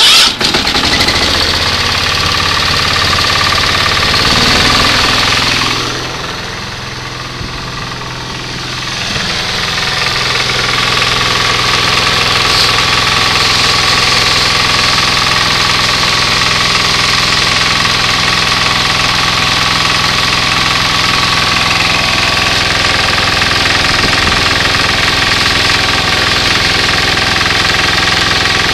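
14-horsepower Kohler engine of an old riding mower running steadily after coming in abruptly. Its level drops for a few seconds about six seconds in, then it runs on evenly.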